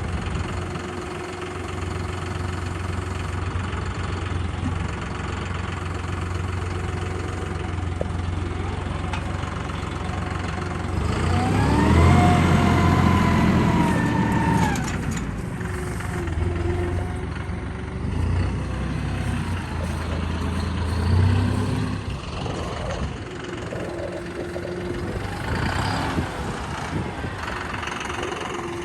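A vehicle engine running steadily. About halfway through it revs up, holds at the higher speed for a few seconds, then drops back, and a shorter rev follows a little later.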